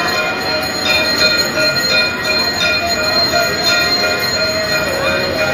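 Temple aarti bells clanging: a dense, loud metallic ringing that holds steady, renewed by fresh strikes every half second to a second.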